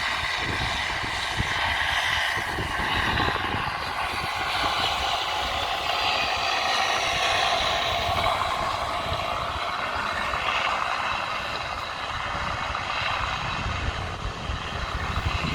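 Radio-controlled P-47 model warplane in flight: a steady engine-and-propeller drone from its on-board sound-effect speaker, which follows the throttle, swelling and easing as the plane flies around. Wind buffets the microphone.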